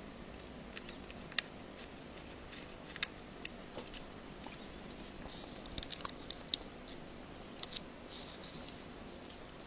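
Small screwdriver and tiny screws clicking and tapping against the iPhone 5's internal metal covers as the screws are fitted. Scattered single clicks, with a quicker run of clicks about five to eight seconds in.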